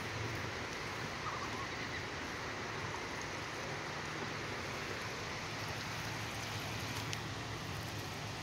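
Steady outdoor background noise: an even hiss with a faint low hum and no duck calls, and a single faint click about seven seconds in.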